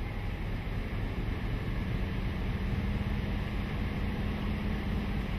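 Class 56 diesel locomotive's Ruston-Paxman V16 engine working as it hauls the train, heard from an open coach window over the steady rumble of the wheels on the track. A steady engine note comes in about two seconds in.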